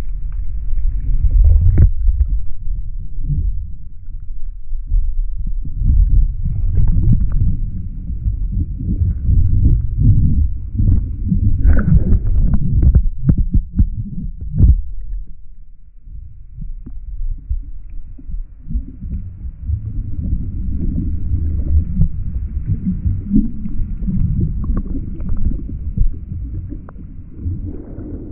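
Breaking surf heard with the camera underwater: a muffled low rumble of churning water and bubbles, with scattered sharp knocks and crackles. The rumble eases for a few seconds past the middle, then builds again.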